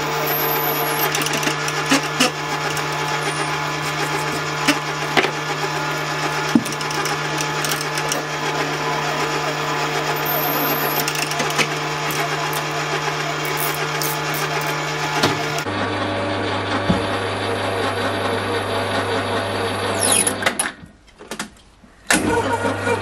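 Drill press spindle running steadily while a Völkel Orange Ring machine tap cuts a thread into brass, with many small ticks from the cutting and the chips. About two-thirds through, the hum shifts to a lower pitch, and near the end the sound drops out for a moment.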